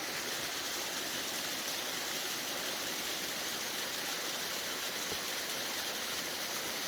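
Steady, even rushing of water with no breaks or distinct events.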